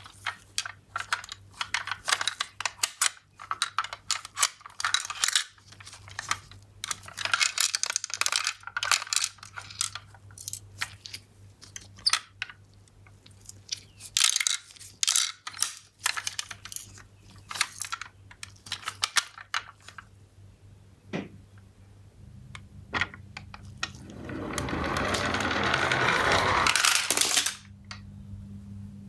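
Toy minicars clicking and clattering against one another and the box in scattered bursts. Near the end comes a longer rattling run that grows louder for about three seconds and then stops abruptly.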